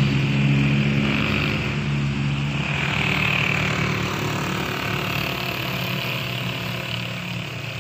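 A motor vehicle's engine running with a steady low hum that fades gradually.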